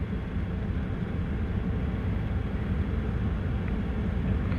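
Steady low rumbling background noise, even throughout, with no distinct tool or trim sounds standing out.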